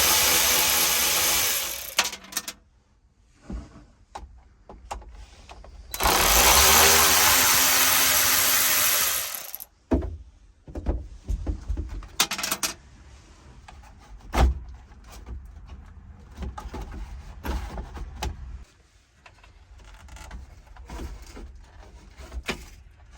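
Cordless drill-driver with a 7 mm socket backing out dash screws: a run of about two seconds at the start and another of nearly four seconds about six seconds in. Between and after the runs come scattered clicks and rattles of loose screws and plastic trim being handled.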